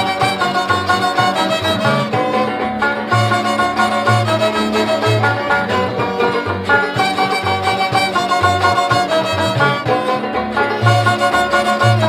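Background music with fiddle and a steady bass line.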